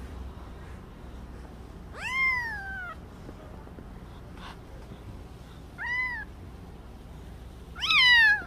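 Week-old kitten mewing three times in high, thin cries that rise and then fall. There is a long one about two seconds in, a short one around six seconds, and the loudest near the end.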